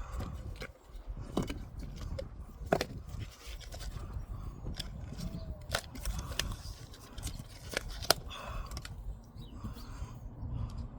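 Hand-work noises of seed planting: scattered sharp clicks and scrapes, about half a dozen, over a steady low rumble.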